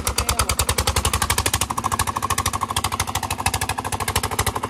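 Diesel engine running at a fast, even chugging beat. Its big-end bearing has only been patched up for temporary use and not yet replaced.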